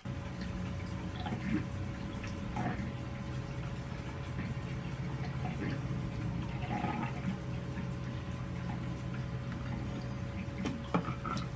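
Bathwater sloshing and dripping in a tub, with a steady low hum; a cat pawing at the water makes a small splash near the end.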